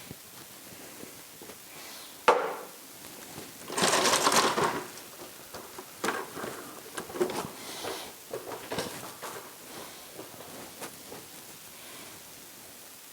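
Workshop handling noises. A sharp knock comes about two seconds in, a scraping, rustling noise follows about four seconds in, and scattered lighter knocks and clicks come after it.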